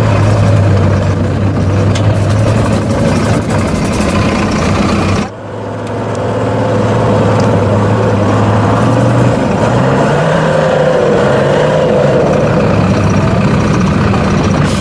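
Diesel engine of an off-road trial truck working under load as it climbs loose sand, running steadily. The sound drops out suddenly about five seconds in, then the engine comes back and its note rises a little past nine seconds as it is revved harder.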